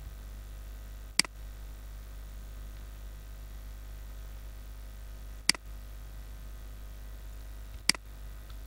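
Three single computer mouse clicks, a few seconds apart, over a steady low electrical hum.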